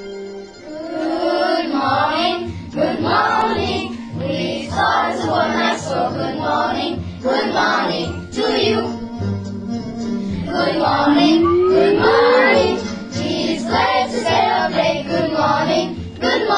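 Music: a song with a choir of children singing over instrumental backing, with one rising sliding note about eleven seconds in.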